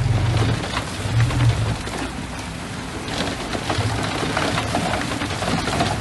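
Small bulldozer at work: its diesel engine runs with a low hum that comes and goes, under a dense crackling and crunching as the blade and tracks push over the ground.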